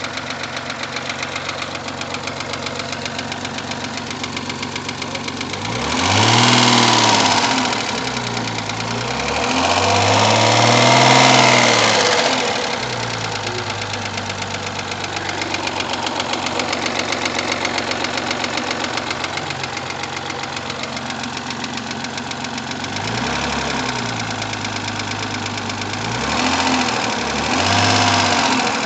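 Rover 75's 2.0-litre 20K4F KV6 V6 engine idling with a heavy, rapid, even knock, revved up and let back down four times. The knock is the sign of two pieces of metal debris in the fifth cylinder: one is trapped between a valve head and its seat, and the other rattles loose in the combustion chamber.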